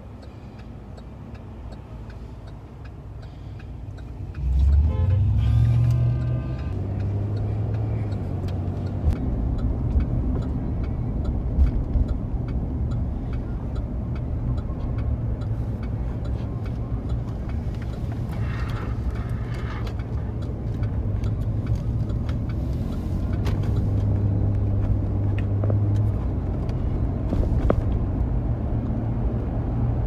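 Car cabin noise from inside a moving car: a steady low engine and road rumble. It jumps louder about four seconds in, then holds.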